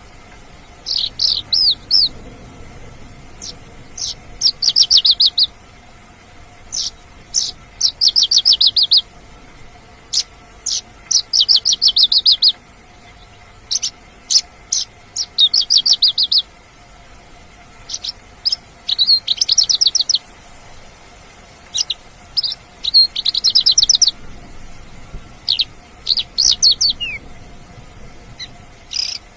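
Mongolian lark singing: short phrases of rapid, high trilled notes, each about a second long and repeated every two seconds or so, with single sharp notes in between.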